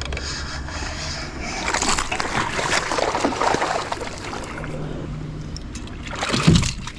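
A hooked bass splashing and thrashing at the water's surface beside a kayak as it is brought in, with water sloshing, then a sharp thump near the end.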